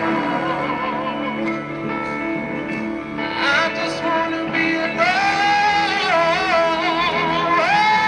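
A man singing a slow song live over sparse, stripped-down backing, holding long high notes with vibrato; he slides up into a held high note about five seconds in and again near the end.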